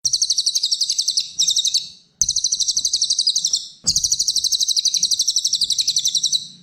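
Cililin songbird giving a rapid, high chirping trill of about ten notes a second, used as masteran song-training audio. It comes in three long runs that break off abruptly, with a click at each restart.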